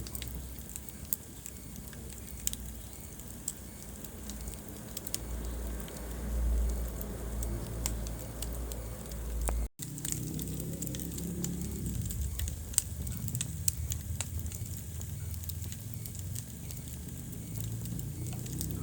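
Wood fire burning in a fireplace: a steady low rumble of flames with scattered sharp crackles and pops. The sound cuts out for an instant just under ten seconds in, then carries on.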